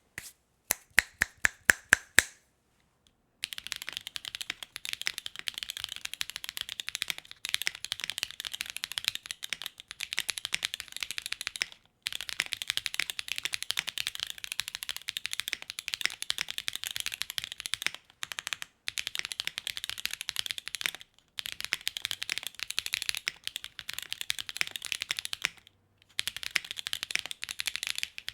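Mechanical keyboard with factory-lubed Kailh Calligraphy linear switches on a carbon plate: about ten single keystrokes at the start, then fast continuous typing with a few short pauses. Clean, clacky keystrokes without spring ping or ticking.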